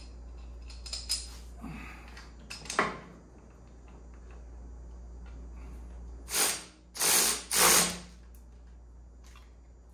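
A hand ratchet tightening the nuts that hold a turbocharger to the engine's exhaust manifold: three short runs of rapid ratchet clicking between about 6 and 8 seconds in. Before them come a few light knocks.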